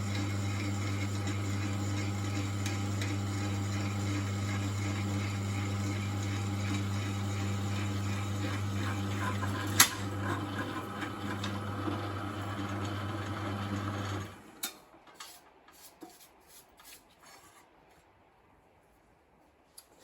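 Electric drill running steadily as it bores a 5/16-inch hole through a lawnmower bottom blade, with a sharp click about ten seconds in. The drill stops about fourteen seconds in, leaving a few faint handling clicks.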